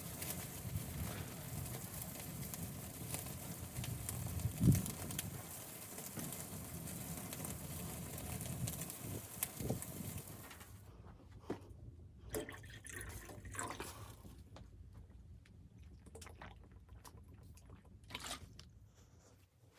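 Liquid sounds with fine crackles and drips and one thump a little before halfway. About halfway the steady noise stops suddenly, leaving scattered small clicks and knocks.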